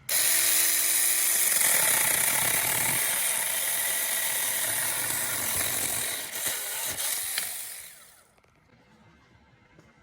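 A small power tool runs for about eight seconds, starting abruptly and dying away near the end.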